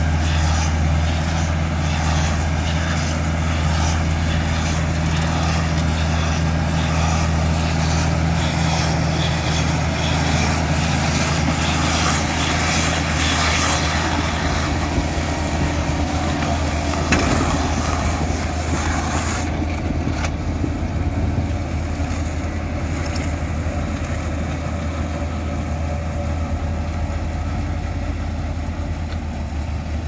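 Case IH CVX 160 tractor's diesel engine running steadily with the Kuhn combi baler-wrapper working behind it. A single sharp knock comes just past halfway, after which the engine hum changes and the sound eases a little as the outfit moves off.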